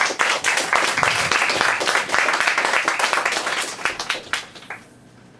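A small audience applauding with hand claps, tapering off about four seconds in and stopping shortly before the end.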